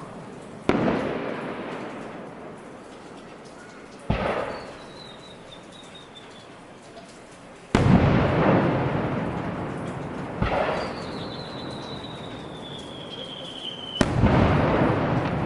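Aerial fireworks shells bursting, five booms a few seconds apart, each followed by a long fading rumble. The booms about halfway through and near the end are the loudest.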